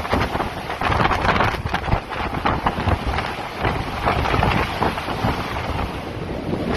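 Strong blizzard wind gusting and buffeting the microphone with a rumble.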